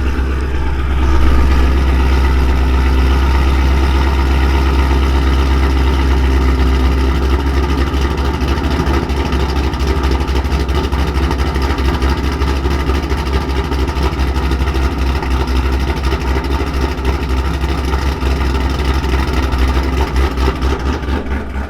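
Ford Mustang 5.0 V8 with American Racing headers idling just after start-up on a Lund ghost cam tune, its idle settling into the tune's choppy lope. The idle turns more uneven and pulsing from about seven seconds in.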